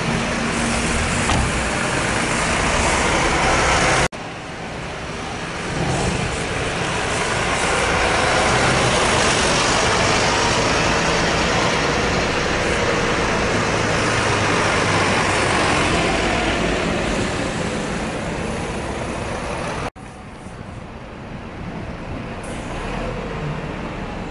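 Volvo city buses running and driving past in street traffic, with engine and tyre noise. The loudest pass comes about 8 to 10 seconds in. The sound breaks off abruptly twice, at about 4 and 20 seconds in.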